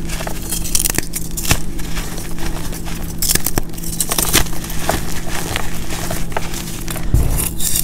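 Pressed blocks of gym chalk mixed with baby powder, corn starch and baking soda being broken and crushed in the hands: irregular crisp crunches and crackles with soft hissing as the powder crumbles and falls, over a steady low hum.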